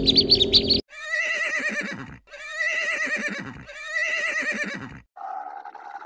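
High chirping cuts off under a second in. Then an animal gives three identical high, wavering calls of just over a second each with short gaps, and a different, lower call starts near the end.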